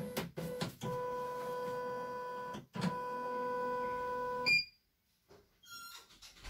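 CNY E900 embroidery machine's embroidery unit driving the hoop: a few clicks, then a steady motor whine in two runs of about two seconds, split by a brief knock and ending with a click. Near the end come short electronic beeps from its panel.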